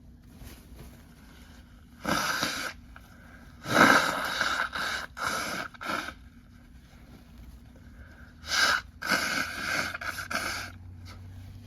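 A person sneezing and blowing their nose: two bouts of several short, noisy blasts, about two to six seconds in and again about eight and a half to ten and a half seconds in. The loudest starts sharply about four seconds in.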